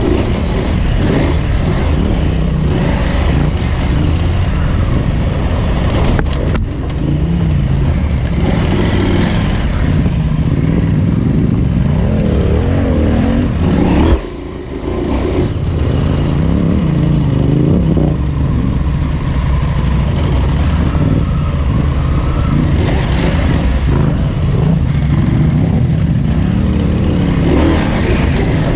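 Parallel-twin adventure motorcycle engine revving up and falling back again and again as the bike rides off-road, with a sharp knock and a brief dip in the engine sound about halfway through.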